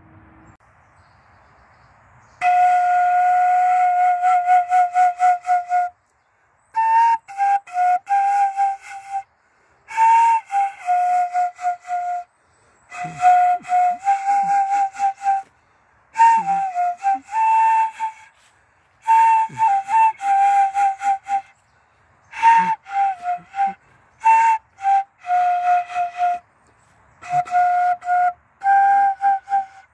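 A simple melody on a high, flute-like whistling tone, played in short phrases of a few notes with brief pauses between them. The first phrase is a fast, pulsing repeat of one note; the later phrases step up and down a little in pitch.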